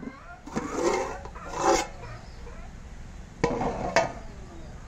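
Aluminium lid knocking and scraping against a large aluminium cooking pot as it is lifted off, with several sharp metal clanks spread through.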